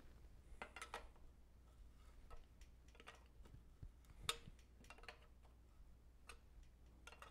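Near silence with faint, scattered metallic clicks and taps, one a little louder about four seconds in: a wrench and bicycle headset parts being handled as the headset cup is snugged down by hand.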